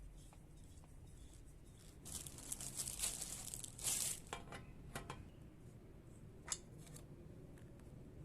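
Crinkling and tearing noises for a couple of seconds, followed by a few light clicks.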